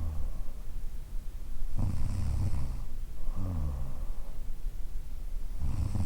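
A woman in her thirties snoring in her sleep, about one breath every four seconds. A low snore comes on the in-breath about two seconds in and again near the end, with a softer sound falling in pitch on the out-breath between them.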